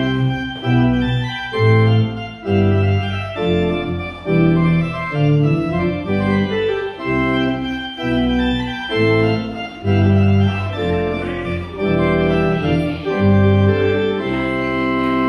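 Organ playing sustained chords that change every half second to a second, settling on a long held chord about 14 seconds in.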